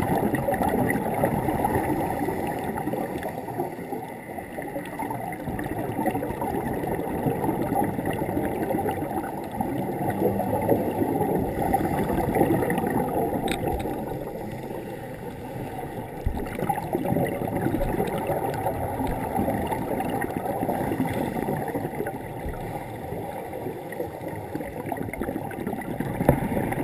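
Scuba divers' exhaled bubbles gurgling and rumbling underwater, heard muffled through a GoPro Hero 2's waterproof housing.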